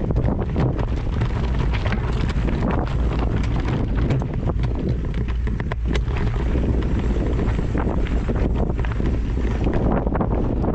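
Wind buffeting the microphone: a steady, loud low rumble with many small crackles.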